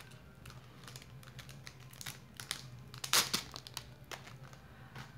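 Clear plastic wrapper crinkling and crackling in the hands as it is pulled off a gummy lollipop, in irregular bursts with the loudest crackle about three seconds in.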